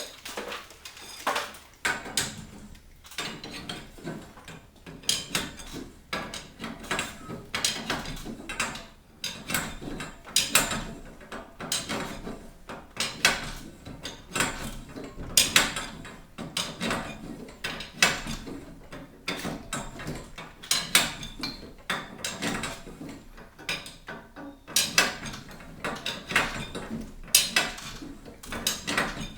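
Steel winding bars clinking and clanking against a garage door torsion spring's winding cone as the spring is wound, a string of irregular sharp metallic knocks and clicks.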